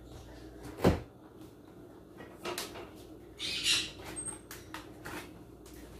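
Kitchen handling sounds as eggs are fetched from a well-stocked refrigerator: a sharp thump about a second in, then light clicks and a short rattle of items being moved about.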